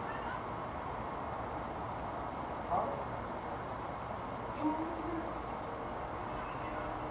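Crickets trilling steadily on one high pitch over a faint background hiss, with a short sound about three seconds in and a brief low tone, like a distant hoot or call, near five seconds.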